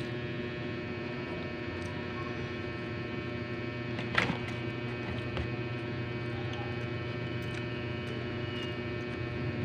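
Steady electrical hum made of several fixed tones, with one sharp click about four seconds in and a few faint ticks.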